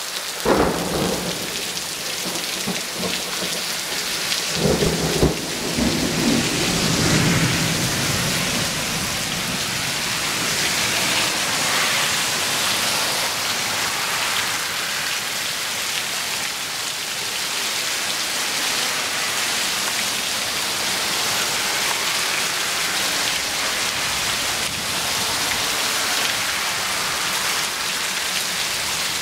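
Heavy rain pouring down on paving and a lawn, a loud steady hiss. Thunder rumbles twice, just after the start and again about five seconds in.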